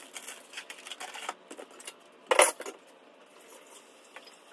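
Kitchen items handled on a countertop: light clicks and knocks, then one louder, sharp clatter about two and a half seconds in.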